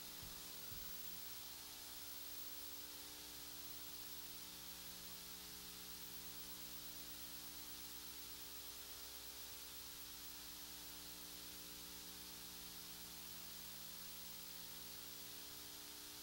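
Faint steady hiss with a low electrical hum, unchanging throughout: the recording's background noise floor, with nothing else sounding.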